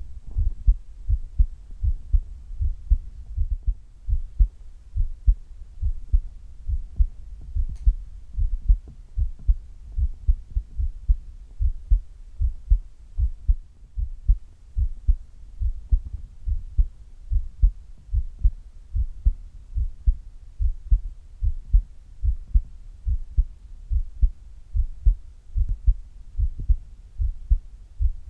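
A person's heartbeat heard through the chest wall: a steady, even beat of low, soft thumps.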